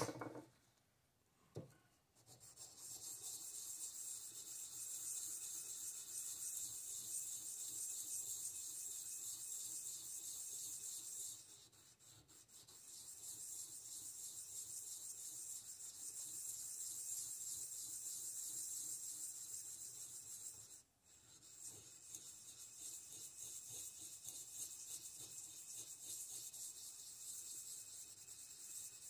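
An engine valve's stem end being sanded down with sandpaper on a piston ring filer: a steady abrasive rubbing in three long stretches, with brief pauses about eleven and twenty-one seconds in. Metal is being taken off the exhaust valve stem bit by bit because its valve clearance is too tight.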